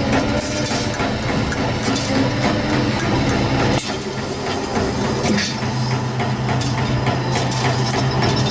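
Spring lock washer wire coiling machine running as flattened steel wire is fed through its rollers and wound into a tight coil, a steady mechanical clatter with rapid rattling clicks. A steady low hum joins in about halfway through.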